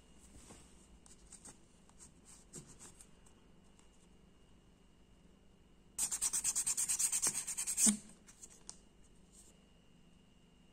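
Fine sandpaper rubbed quickly back and forth over a small part of an old Marksman dart pistol, about ten strokes a second for about two seconds, starting about six seconds in. Before that, only faint scratching and handling of the part.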